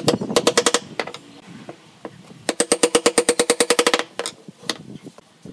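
Wooden mallet rapidly tapping a pine post down into a glued mortise joint. There is a quick run of about eight taps, then after a pause a faster run of around fifteen taps at roughly ten a second, followed by a couple of single taps.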